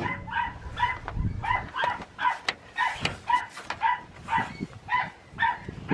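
A dog barking over and over in a steady rhythm, about two to three barks a second. There is a single sharp knock right at the start.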